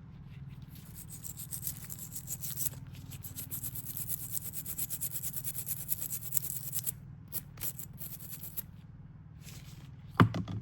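Fast, scratchy scrubbing of a brush on a corroded aluminium artillery fuse. The strokes run thick for about seven seconds, then come in a few short bursts, and a single knock sounds near the end.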